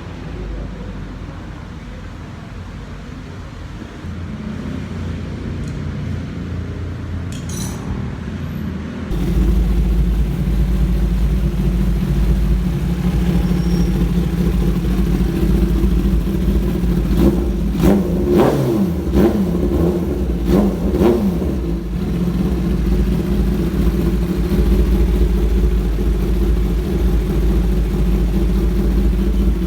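Kawasaki ZX-10R's inline-four engine running steadily, becoming louder about nine seconds in, with a cluster of quick throttle blips about two-thirds of the way through.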